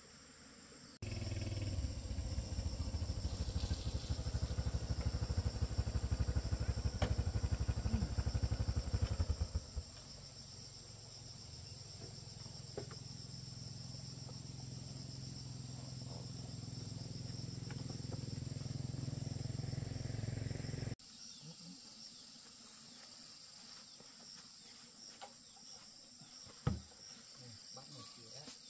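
A low engine rumble, heavy and rapidly pulsing for several seconds, then settling into a steadier hum that slowly builds and cuts off abruptly. Under it runs a steady high drone of insects.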